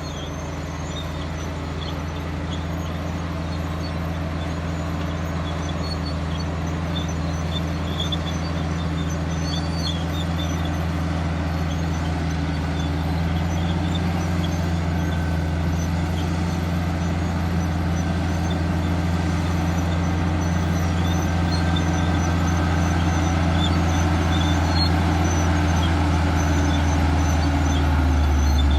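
Komatsu D155A-5 bulldozer's diesel engine running steadily with a deep drone, growing gradually louder. Faint short high squeaks sound over it now and then.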